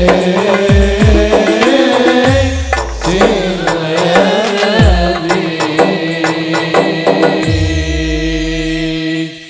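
Sholawat music ending: a band with low drum strikes that slide down in pitch under held melodic tones, closing on a long held chord that cuts off suddenly at the end.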